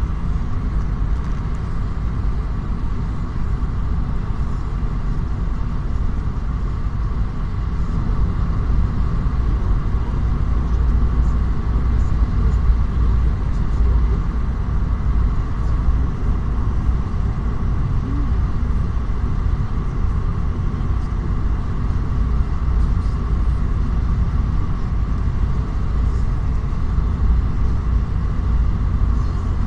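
Car on the move: a steady rumble of engine and road noise.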